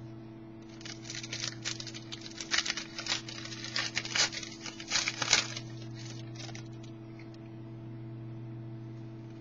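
Trading cards being flipped and slid against one another in the hand: a quick run of light rustles and clicks for about five seconds, then it stops, leaving a steady electrical hum.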